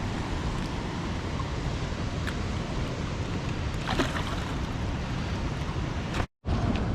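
Steady rushing noise of water at a spillway mixed with wind buffeting the microphone, with a few faint clicks. It cuts out briefly near the end.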